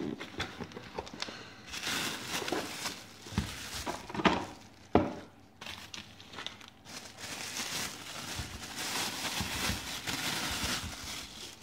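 Handling a cardboard box and a thin plastic bag: a few knocks and scrapes as the puzzle is taken out of the box, then the plastic bag crinkling as it is pulled open around the puzzle, from about seven seconds in.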